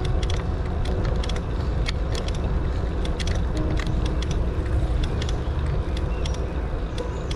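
Wind rumbling steadily on the microphone of a camera moving along a paved path, with many irregular light rattling clicks from the moving ride.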